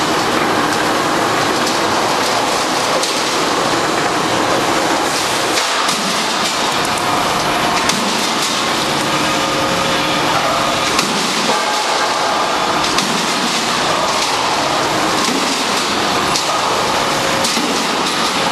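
Two-wave guardrail roll forming machine running, galvanized steel strip feeding over its guide and through the forming rollers: a steady, loud mechanical noise of metal running over metal, with faint steady tones and scattered light clicks.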